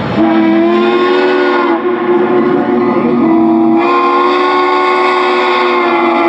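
Steam locomotive chime whistle blowing long, steady blasts, several tones sounding together as a chord; a brighter blast starts about four seconds in.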